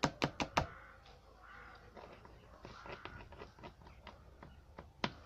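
Soap-based slime being handled, making sharp wet clicks: four quick ones at the start, faint scattered ones after, and one more near the end.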